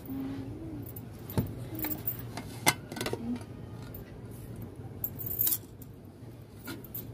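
Aluminium pressure cooker lid being twisted open and lifted off, with several sharp metal clicks and clanks, the loudest about a third of the way in. The cooker is being opened once its cooking is done after five whistles.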